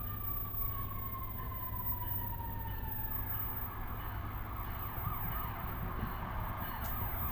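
Emergency vehicle siren: a slow falling wail for about three seconds, then switching to a fast warbling yelp, over a steady low rumble.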